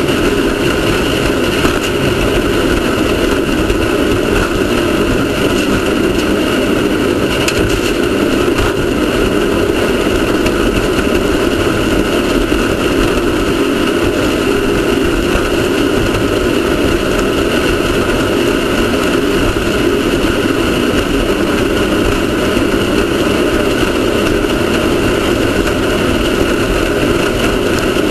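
Off-road race car's engine running loud and steady at an even pitch, with no revving up or down.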